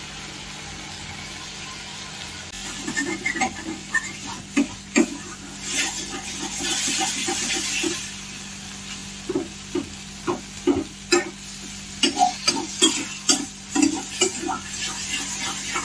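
Spatula stirring and scraping frying onion-and-spice masala around a metal kadai, with sizzling. The strokes start a few seconds in, a longer sizzling hiss comes at about the middle, and quick repeated scrapes follow near the end.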